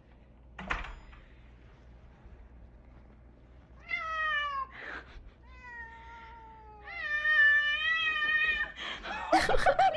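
A domestic cat throwing a tantrum: three long, complaining meows, each sliding down in pitch, the last one the longest and loudest. A short knock comes about a second in, and a brief jumble of louder noise near the end.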